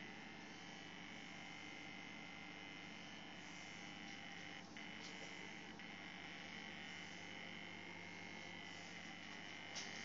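Steady electrical buzz with a mains hum underneath, a homemade RF detector responding to a running microwave oven's leakage; a couple of faint clicks about halfway and near the end.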